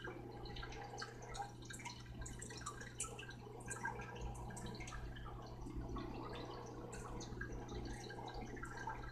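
Water in a 29-gallon saltwater nano aquarium trickling and dripping in quick, irregular drops from its circulation, over a steady low hum.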